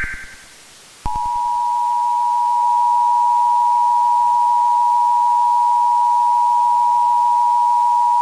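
Emergency Alert System tones: the last of a buzzy digital header burst dies away, then about a second in the EAS attention signal starts, a steady, loud two-tone beep (about 850 and 960 Hz together) held without a break.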